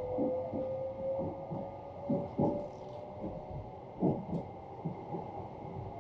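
E261-series Saphir Odoriko electric train pulling away, heard from inside the passenger cabin. A steady motor whine climbs slowly in pitch as the train gathers speed, with irregular clunks and knocks from the running gear.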